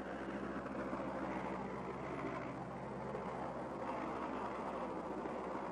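Light aircraft's piston engine running steadily, a constant hum with a rushing noise, heard from inside the cabin.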